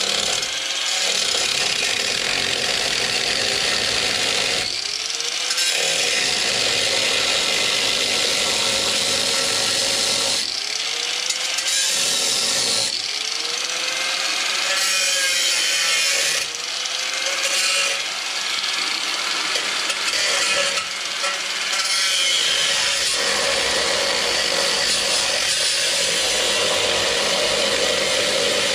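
Cordless grinder with a cutting disc cutting through the car's steel frame rail: a loud, continuous grinding. The motor briefly drops off and spins back up several times, about five seconds in and again between about ten and seventeen seconds.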